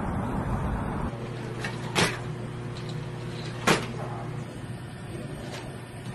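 Two sharp knocks from the MIT Mini Cheetah quadruped robot in a lab, about two seconds in and again a second and a half later, over a steady low hum. Before that, an even rumbling noise stops about a second in.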